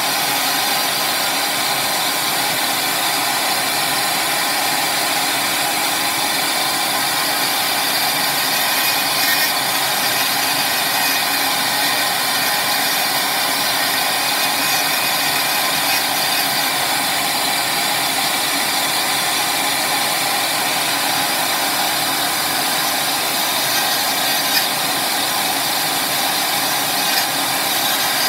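Dremel rotary tool running steadily with a thin bit cutting away the plastic housing of a chip module: a constant high-speed motor whine with the rasp of the bit on plastic.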